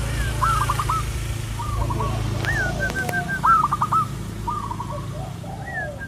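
Zebra dove (perkutut) cooing: several phrases in quick succession, each a run of short, quick notes, over a steady low hum.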